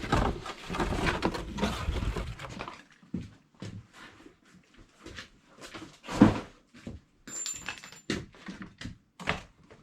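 A cardboard box and its packaging being handled and moved aside: rustling and scraping for the first three seconds or so, then scattered knocks and bumps, the loudest about six seconds in. A brief faint high tone sounds about seven seconds in.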